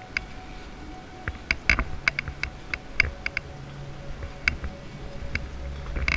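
A series of irregular, sharp, light clicks and clinks, about fifteen in all, bunched together through the middle.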